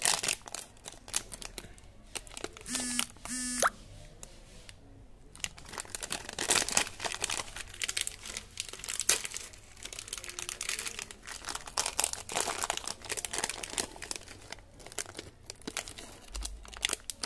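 Foil-lined plastic candy wrappers crinkling as hands handle and tear them open, with a brief raspy tearing rip about three seconds in.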